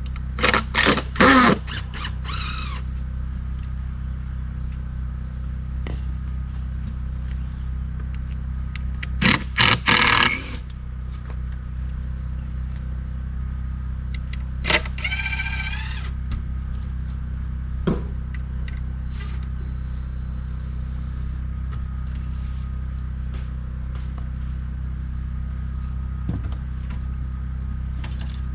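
Portable generator engine running steadily with a low hum, broken twice by short, loud bursts of power-tool noise, about half a second in and again about nine seconds in.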